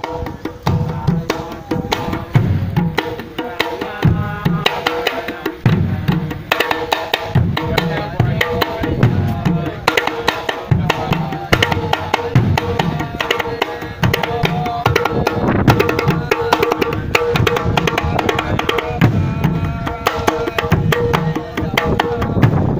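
Rastafarian Nyabinghi drumming: a steady beat of low bass-drum strokes under fast, sharper hand-drum taps.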